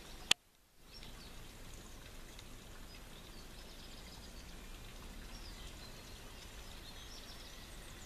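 Steady outdoor background noise with faint, scattered bird chirps. About a third of a second in, a single sharp click, then the sound drops out for about half a second before the background returns.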